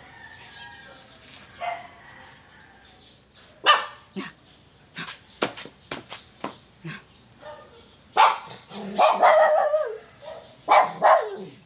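Pet dog barking in short sharp bursts: a few single barks about four to five seconds in, then a quicker run of barks and yips from about eight seconds to near the end.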